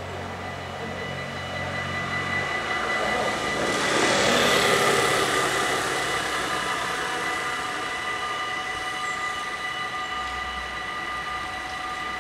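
Dutch level-crossing warning bells ringing continuously as the half-barriers come down. A motor scooter passes close by about four to five seconds in, swelling up and fading away as the loudest sound.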